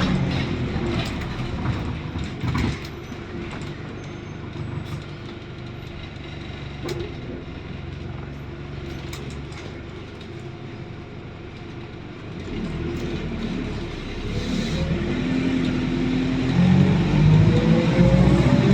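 Diesel engine of a diesel-converted ADL Enviro400 double-decker bus, running quieter for several seconds, then getting louder from about two-thirds of the way in, its note rising as the bus accelerates near the end.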